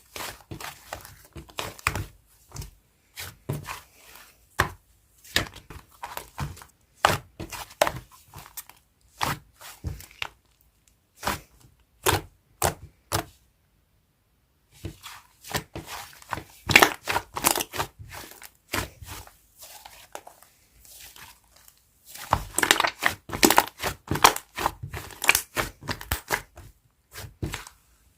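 Fluffy mint-coloured clay slime being squeezed, poked and stretched by hand, giving irregular sticky pops and crackles. There is a short pause about halfway, then denser, louder popping near the end.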